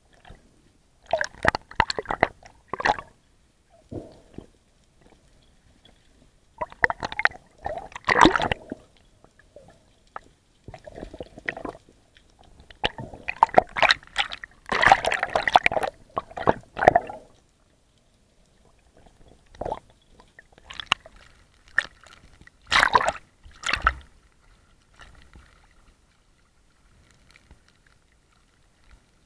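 Seawater splashing and gurgling around a camera at and just under the sea surface, in short irregular spells with quiet gaps between them, the longest and loudest about halfway through.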